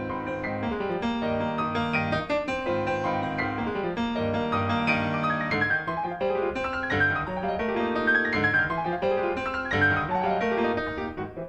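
Piano music: a steady run of notes and chords.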